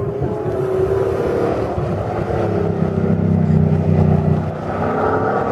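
Ford F-150 SVT Raptor pickup's V8 engine accelerating hard as the truck drives past on a dirt track, the engine note rising and falling, loudest as it passes closest.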